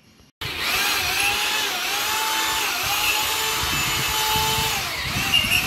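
Electric drill running, its whine dipping in pitch and recovering several times as it bites under load. It starts abruptly about half a second in.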